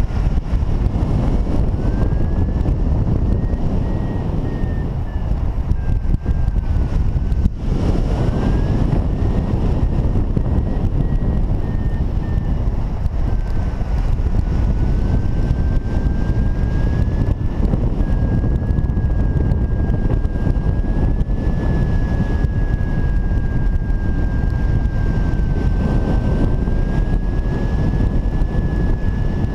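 Strong wind rushing over the microphone of a camera on a paraglider in flight. Over it a thin high tone keeps sounding, slowly rising and falling in pitch, steadier in the second half.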